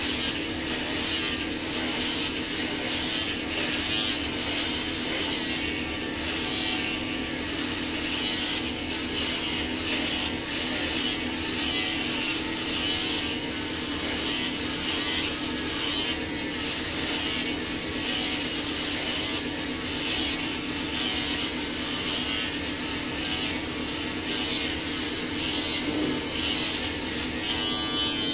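Electric hair clippers running with a steady buzz while cutting through long hair as a head is shaved down.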